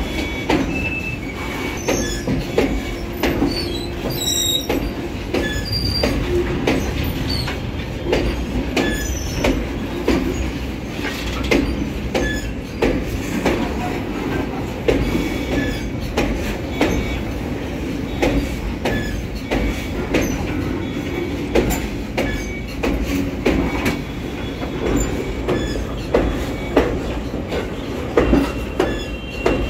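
A freight train of covered goods wagons rolling past at close range. Its steel wheels give a steady rumble on the rails, with repeated clacks as they cross rail joints and a few brief, high wheel squeals.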